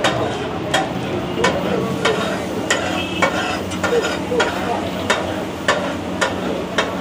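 Pav bhaji being cooked on a large flat tawa griddle: a metal spatula clacks and scrapes against the pan every half second or so over a steady sizzle of frying.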